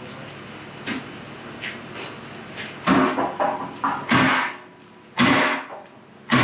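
Sledgehammer blows on a rusty steel differential axle housing, knocking it free from the old power hammer's frame. A few light knocks come first, then, from about three seconds in, heavy clanging strikes about a second apart, each ringing briefly.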